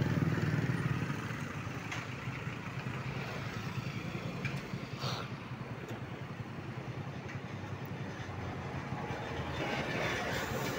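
Road traffic passing: motorbike and small truck engines running, with one engine hum loudest at the start that fades within the first couple of seconds, over a steady background of traffic noise.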